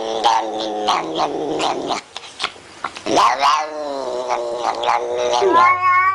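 Cat yowling in long, drawn-out wails, with a short lull about two seconds in before louder yowls.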